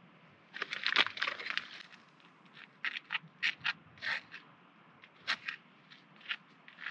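A knife scraping across a dry crispbread (knäckebröd) as it spreads cod roe paste, giving crisp, crackly scrapes. A dense run of them comes about half a second in, then a dozen or so separate strokes.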